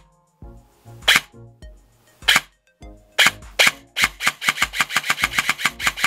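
Airsoft electric gun's V2 gearbox dry-firing under a Perun V2 optical MOSFET, fired by light presses of the trigger: four single shots, the last two close together, then a rapid string of shots, about seven a second, from about four seconds in.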